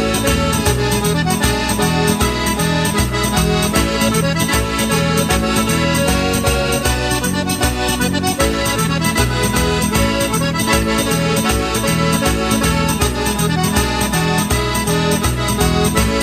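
Traditional folk dance music with a steady, even beat.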